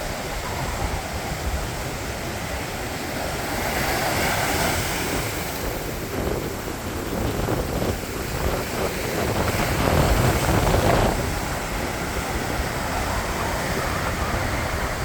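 Heavy surf crashing, with strong wind gusting across the microphone. The waves swell loudest about four seconds in and again around ten seconds.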